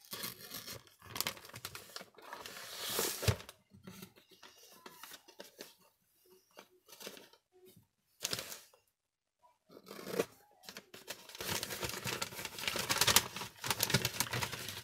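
Gift-wrapping paper and packing tape being slit with a small craft cutter, the paper rustling and tearing in irregular bursts. There is a quieter lull in the middle, and the cutting and rustling are busiest near the end.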